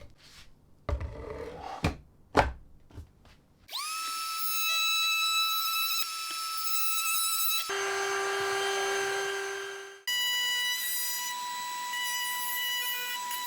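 A few light knocks, then a high-speed electric power-tool motor spins up quickly and runs with a steady high whine. Its pitch jumps abruptly twice.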